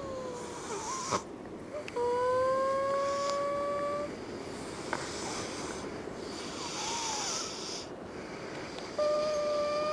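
Snoring with a nose whistle: long, steady whistling tones through the nose on the breaths, two of them loud, one rising slightly in pitch from about two seconds in and another near the end, with soft, breathy snoring between.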